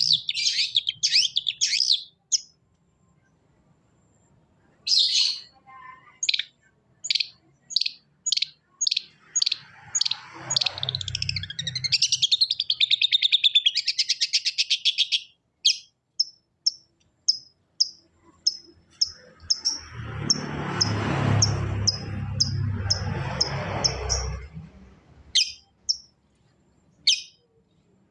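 Long-tailed shrike (cendet) song: trains of short, sharp, high chirps at about two a second, a fast trill partway through, and two rough, noisy stretches.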